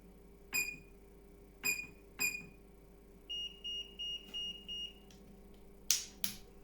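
Electronic beeps from bench test equipment: four short pinging beeps, then five quick beeps in a slightly higher tone, followed by two sharp clicks near the end.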